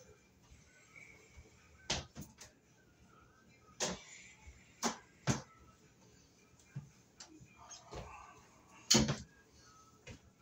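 Scattered sharp knocks and clicks of hard objects being handled, about eight in all at uneven intervals, the loudest near the end.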